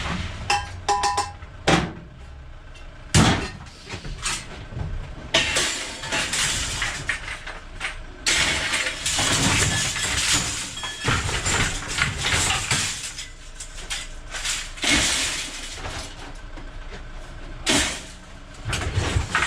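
Pieces of scrap steel clanging and clattering as they are thrown down onto a pile, in a run of irregular metallic impacts.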